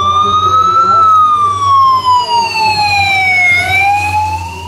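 Police motorcycle's siren wailing, its pitch slowly rising, falling over a couple of seconds and rising again as the motorcycle passes. It gets quieter near the end.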